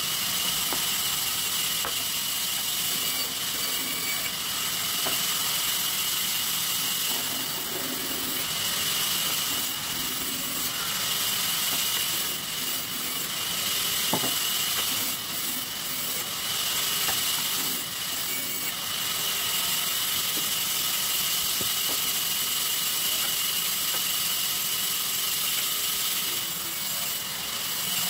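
Sawmill table saw running steadily with a constant high whine, its blade cutting sheesham timber.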